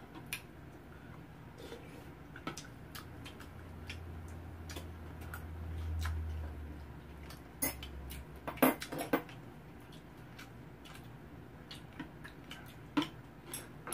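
Spoons and chopsticks clinking against bowls and a pan during a meal: scattered light clicks, with a quick cluster about eight to nine seconds in. A low hum underneath stops about eight seconds in.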